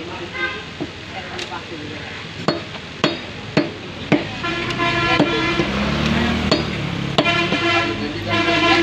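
Cleaver chopping beef on a wooden tree-stump block: about ten sharp, irregular chops. From about halfway in, louder street noise with a vehicle engine and pitched tones rises under the chops.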